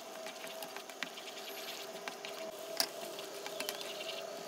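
Wooden spatula stirring a thick, simmering tomato and onion gravy in a non-stick pan, giving fine crackles and scrapes with one sharper click about three seconds in, over a steady hum.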